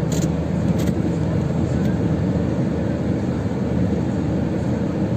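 Steady low rumble of a vehicle engine running, with an even hum and no siren.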